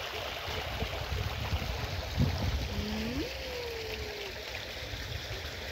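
Small pond fountain splashing steadily into the water, with a low wind rumble on the microphone. About three seconds in, a short call rises and then slowly falls in pitch.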